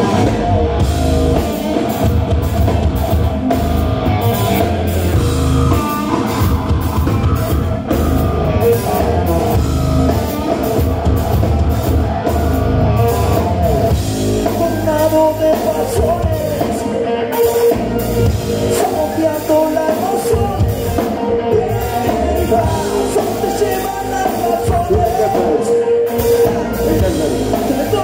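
Live rock band playing loudly: electric guitars, bass and a drum kit pounding a steady beat, with a voice singing over them.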